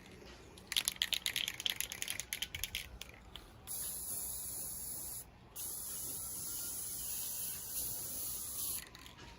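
Aerosol can of black spray paint hissing. It starts with a run of quick short spurts, then gives two longer steady sprays with a brief pause between them.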